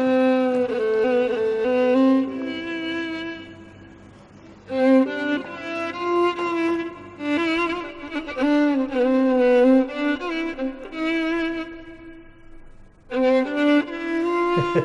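Background music: a violin playing a slow melody with wavering, sliding notes, in three phrases with lulls about four seconds in and about eleven seconds in.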